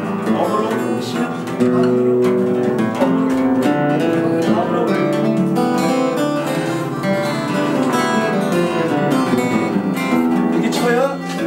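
Steel-string acoustic guitar playing a run of single notes: an open-position C major scale (do-re-mi) in the first three frets, picked with alternating down and up strokes.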